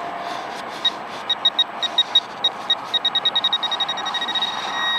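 Teknetics Tek-Point pinpointer probing wet sand: single beeps about a second in, coming faster and faster until they merge into a steady tone near the end as the tip closes in on a metal target, over the scrape of the probe in the sand.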